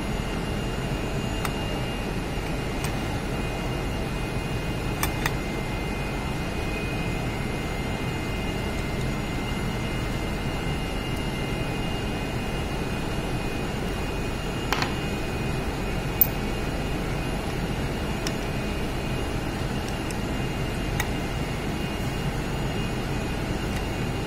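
Steady mechanical background noise, like a fan or running machinery, with a few short metallic clicks of steel pins and parts being fitted into a cycloidal reducer housing; the sharpest click comes about 16 seconds in.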